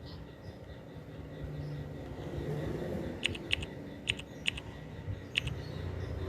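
About five short, sharp clicks, some in quick pairs, over a steady low hum.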